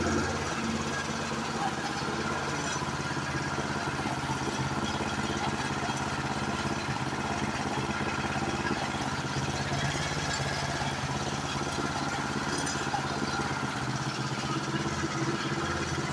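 Small four-stroke snowblower engine running steadily, freshly repaired after its carburettor flooded the crankcase with fuel; it runs without the knocking it had before, by the owner's ear.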